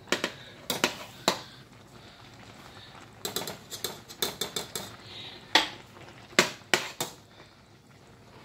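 A metal spoon clinking and scraping against a stainless steel pot while stirring and lifting cooked elbow macaroni. The knocks are irregular, with a quick run of clinks in the middle and a few sharp single knocks near the end.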